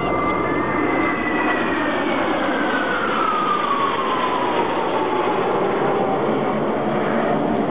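Jet engines of a six-aircraft formation passing overhead: a steady roar with a whine that falls steadily in pitch as the formation flies away.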